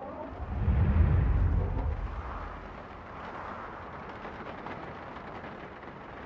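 A deep low rumble swells up about half a second in and dies away over about two seconds. A steady soft hiss continues after it.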